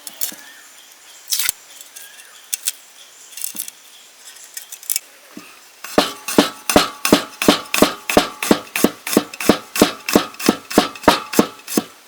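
A knife chopping fast on a cutting board, about four to five even strokes a second, starting about six seconds in after a few scattered clicks and knocks.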